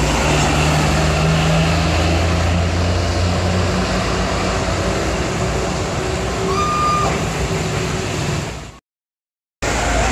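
A coach's diesel engine hums low and loud as it passes close, over the steady hiss of tyres on a wet road. The hum fades after a few seconds. About two-thirds through comes a short high-pitched horn toot, and near the end the sound cuts out completely for under a second.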